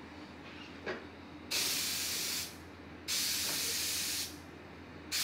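Bursts of air hissing out of an interactive museum table exhibit: two blasts of about a second each, then a third starting near the end, with a small click just before the first.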